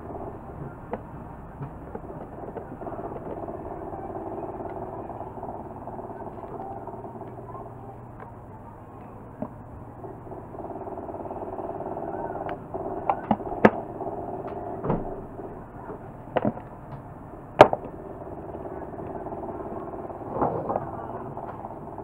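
Sharp clicks and snips from hand tools working a hair dryer's wiring, most of them in the second half, over a steady background drone.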